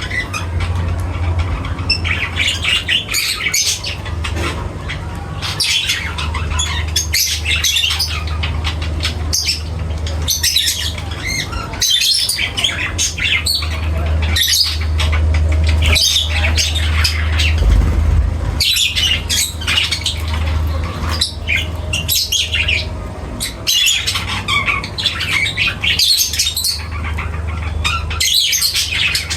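Pet budgerigars and lovebirds chattering and squawking together in dense, overlapping high calls, over a steady low hum.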